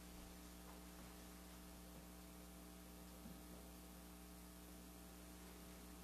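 Near silence: room tone with a steady low electrical hum and faint hiss.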